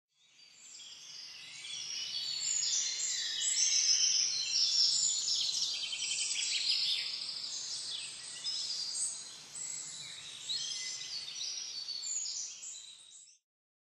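A chorus of many birds chirping and trilling together, high-pitched. It fades in over the first few seconds and cuts off near the end.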